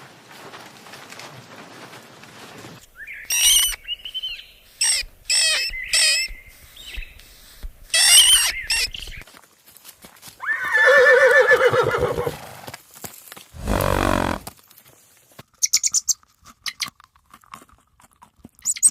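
Several different farm-animal calls in turn: a run of high, wavering cries, then a longer, lower wavering call about ten seconds in, a short low call, and quick bird chirps near the end.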